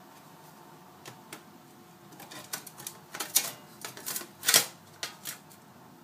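MacBook Pro's loosened aluminium bottom case being handled and lifted off: a couple of faint clicks, then a quick run of sharp metallic clicks and clatters in the middle, the loudest two near the end.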